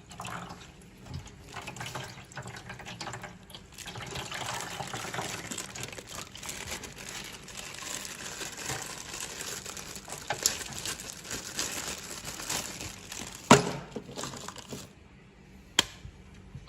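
Tap water running and splashing as plastic toy figures are washed under it, with a sharp knock about 13 s in. The water stops about 15 s in, leaving a quieter stretch with one click near the end.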